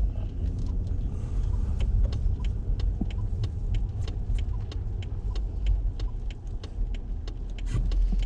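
Car running, a steady low rumble with many scattered sharp ticks over it.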